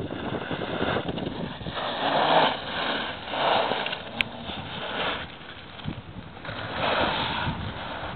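Sport quad bike's engine running and being revved, the sound swelling and easing several times as it pulls away across gravel.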